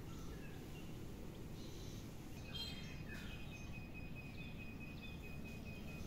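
Steady outdoor background noise with a few short, high bird chirps, and a thin steady high tone that starts about halfway through.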